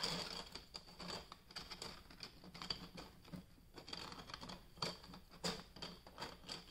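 Faint, irregular light clicks and taps of 3D-printed plastic rings knocking and rubbing against one another as they are fitted together by hand.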